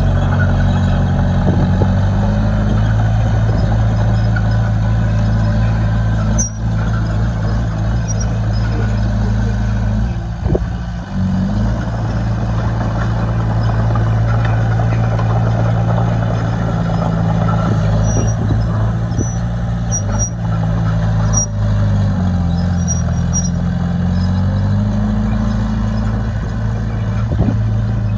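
Heavy diesel engine of earthmoving equipment running steadily under load, its pitch dipping and recovering briefly a few times: near the start, about ten seconds in, and again around twenty-three seconds.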